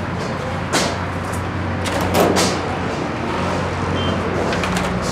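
Road traffic running steadily as a low hum, with louder passing rushes just under a second in and about two seconds in.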